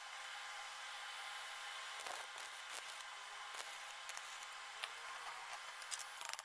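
Arc welding on a steel car wheel rim: a steady crackling hiss with scattered sharp clicks of metal.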